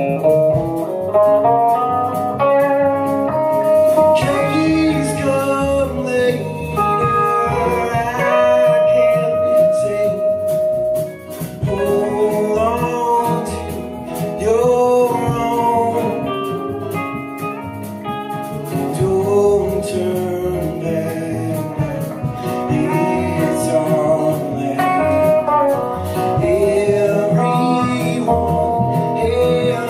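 Americana band playing a song live: strummed acoustic guitar, upright bass, electric guitar and drum kit, with a man singing the lead vocal.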